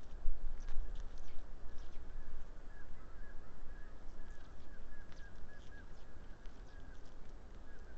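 An unidentified animal giving a run of short calls at one steady pitch, about two a second, starting a couple of seconds in and stopping near the end. Scattered short bird chirps and a low rumble run underneath.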